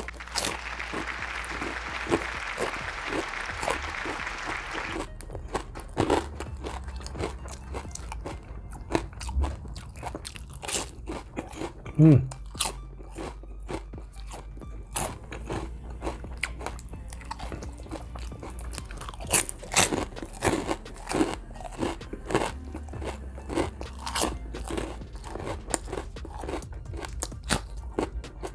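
Close-miked biting and chewing of crispy chicharron (fried pork skin): a steady run of crisp crunches and crackles, with a louder cluster of crunches past the middle.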